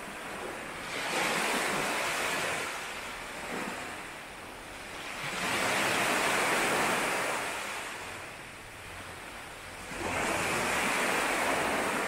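Sea waves breaking on a shore: three washes about four to five seconds apart, each swelling up and fading away over a couple of seconds.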